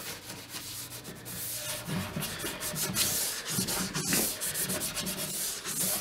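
Live edge of a pine dresser top being sanded by hand with a sanding pad: quick back-and-forth rubbing strokes of abrasive on wood, a little stronger from about two seconds in.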